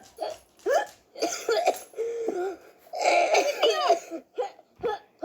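People laughing in short voiced bursts, with no clear words. A longer, louder stretch comes about three seconds in.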